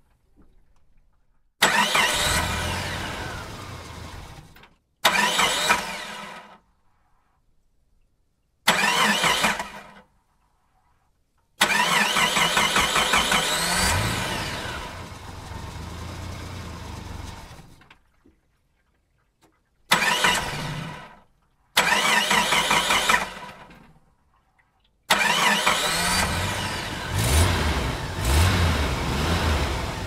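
A run of separate engine start-ups played one after another, about seven in all. Each one begins suddenly as the engine catches, with a quick rev that climbs and then falls, then dies away or cuts off, with short silences between them. The last one keeps running, revving up and down.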